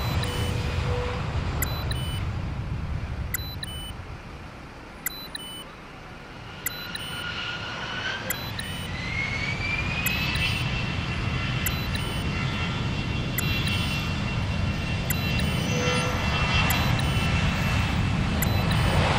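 Jet aircraft engine running with a low rumble. A whine rises in pitch about eight seconds in, then holds steady as the engine builds up.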